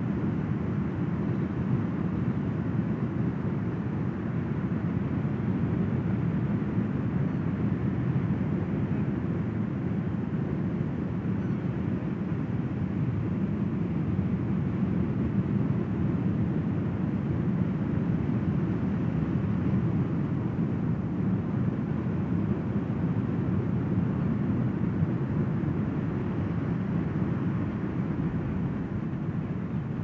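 Ocean surf breaking along a wide sandy beach: a steady, even roar with no single wave standing out.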